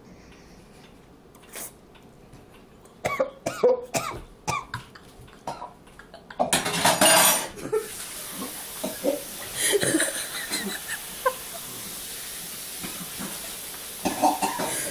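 A person coughing and choking hard on a mouthful of dry ground cinnamon, starting about three seconds in. Nearly halfway through comes a loud spluttering burst, and from then on a steady hiss of running kitchen-tap water sits under more coughs and retching over the sink.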